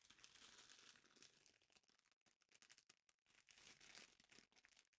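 Near silence, with very faint crinkling of a clear plastic bag being handled.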